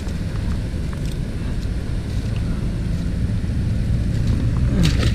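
Steady low background rumble with faint rustling of dry reeds, then a short splash near the end as a released largemouth bass kicks off into the pond.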